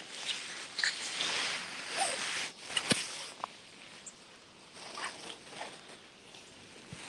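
Small dog sniffing and snuffling with its nose down in wet grass, in quick irregular rustling bursts that thin out after about three seconds, with one sharp click around then.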